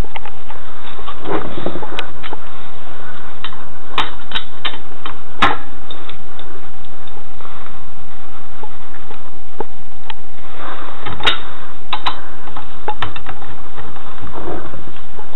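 Sharp metal clicks and clanks of a four-way cross lug wrench being fitted onto a steel wheel's lug nuts and turned to tighten them, a handful of separate clicks at uneven intervals. Under them run a steady hiss and a thin steady hum.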